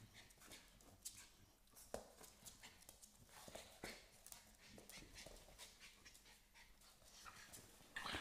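Two Staffordshire terrier puppies play-wrestling on a wooden floor: faint scuffling and scattered taps of claws and paws on the boards, with panting. A louder knock comes near the end.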